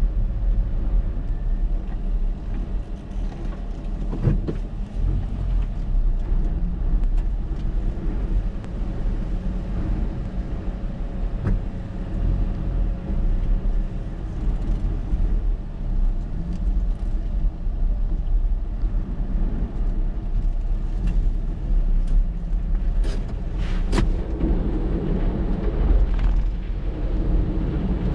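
Typhoon wind and heavy surf: a loud, steady low rumble with the wind buffeting the microphone, and a few sharp knocks scattered through it.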